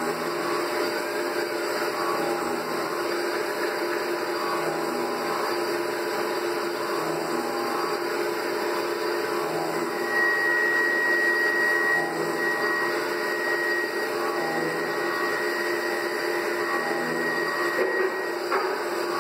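CNC vertical milling machine with flood coolant running steadily while it cuts a gear-shaped metal part. A high cutting whine comes in about halfway and holds until near the end, with a short knock near the end.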